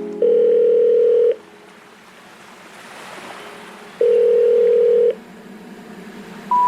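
Telephone line tones: two one-second steady ringing tones about three seconds apart, with a soft hiss swelling between them. Near the end come three short beeps stepping up in pitch, the phone network's intercept signal that comes before a 'number not in service' message.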